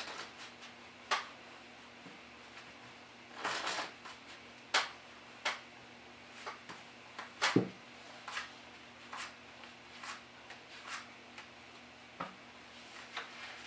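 A deck of playing cards handled on a cloth close-up mat: a short riffle shuffle about three and a half seconds in, amid scattered sharp card snaps and taps as the deck is squared, cut and cards are dealt down.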